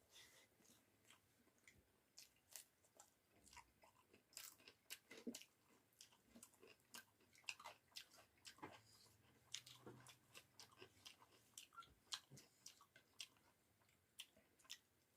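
Quiet, close-up chewing of rice with bamboo-shoot and potato curry: irregular soft clicks and smacks of the mouth, several a second.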